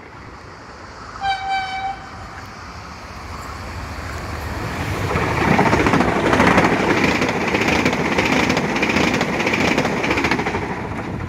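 A Frecciarossa high-speed train sounds one short horn blast about a second in, then passes through the station at speed. Its rushing noise builds steadily, is loudest for several seconds as it goes by, and eases off near the end.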